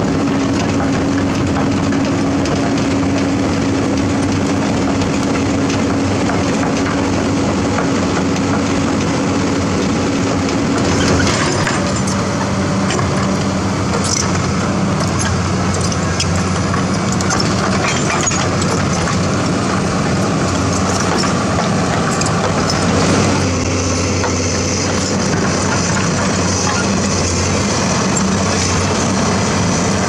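Komatsu hydraulic excavator's diesel engine running steadily under working load as the machine digs and swings, with a few knocks from the bucket and the engine note shifting about eleven seconds in.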